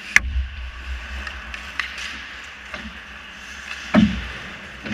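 Ice hockey play close to a goal net: sharp clacks of sticks and puck over rink noise, a loud crack just after the start and a heavier thump about four seconds in.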